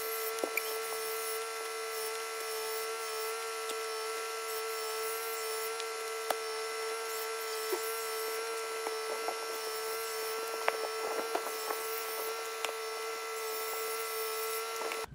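Power saw cutting a tree trunk, running at a steady high-pitched whine with a few scattered clicks and snaps.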